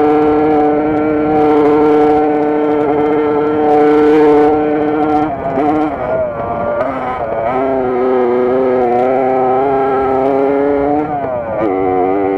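Small two-stroke engine of a Jawa racing moped running hard at high revs, under the rider. The pitch holds steady, drops and wavers about five seconds in, climbs back and holds, then dips briefly again near the end as the throttle is eased and reopened.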